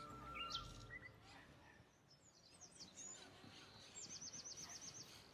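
Faint birdsong: a few scattered chirps and, about four seconds in, a fast trill of around ten quick high notes. Soft background music fades out within the first second.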